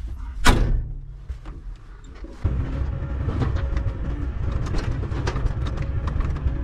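Skid-steer loader's engine running steadily at around 1300 rpm, louder from about two and a half seconds in, with scattered clatter and knocks of broken concrete and brick rubble falling from the raised bucket into a steel dump trailer. A brief whoosh sounds about half a second in.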